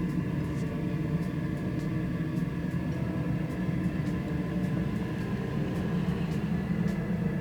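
Steady low drone of a chimney smoke-exhauster fan running, with faint, irregular crackles from kindling burning in a fireplace firebox.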